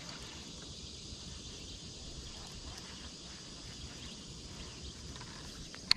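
Faint steady outdoor background of insects chirring, a thin high drone, with a single sharp click near the end.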